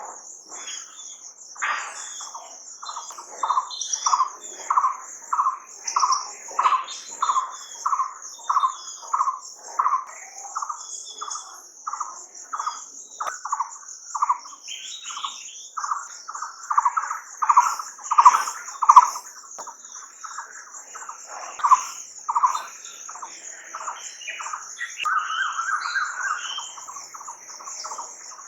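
A bird calling, repeating a short note nearly twice a second, with a longer call near the end, over a steady high-pitched trilling hiss.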